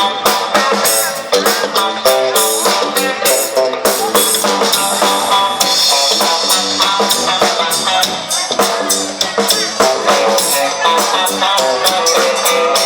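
A band playing a song with guitars and a drum kit, keeping a steady beat.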